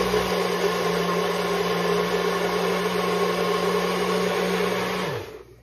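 NutriBullet personal blender running steadily, blending fruit, then switched off about five seconds in, its motor pitch falling as it spins down.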